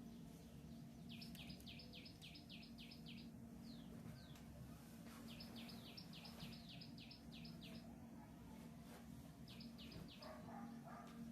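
A bird calling a fast run of short, high notes, each sweeping down, given three times with pauses between, over a faint steady hum.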